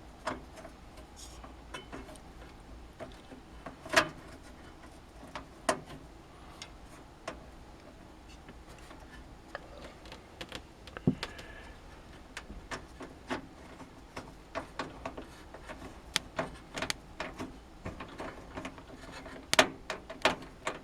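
Scattered light clicks and taps of a screwdriver and screw against a metal PC case as a motherboard screw is worked into place, with a few sharper knocks, the loudest about four seconds in.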